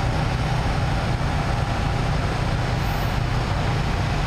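Vehicle engines running steadily, a low drone with a haze of noise over it.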